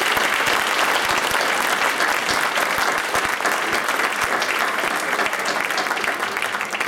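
Audience applauding, a dense, steady clapping from a room full of people.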